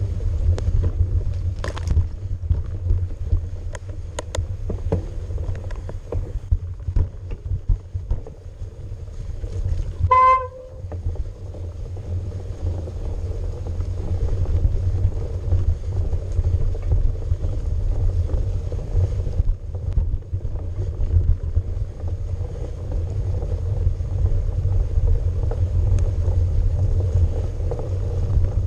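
Mountain bike riding on a snowy trail heard on a GoPro: a steady low rumble from the ride, with a few sharp clicks in the first seconds. About ten seconds in, a brief horn-like tone sounds for half a second, and the rumble drops for a moment after it.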